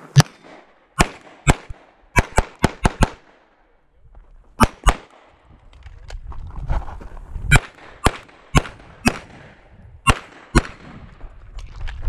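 CZ 75 TS Czechmate competition pistol firing about sixteen sharp shots in quick pairs and strings, including a fast run of five about two seconds in. Low scuffling noise of the shooter moving fills the pauses between strings.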